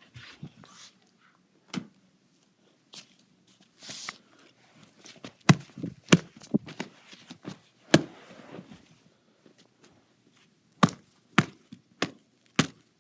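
A series of irregular sharp knocks and taps, bunched together in quick runs with short gaps between.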